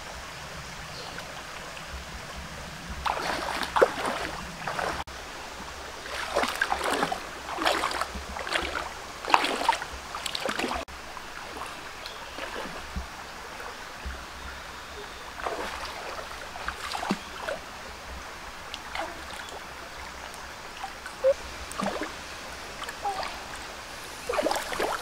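Shallow stream running steadily, with irregular splashes and sloshes from wading through the water and a hand groping in it, busiest a few seconds in and again in the last few seconds.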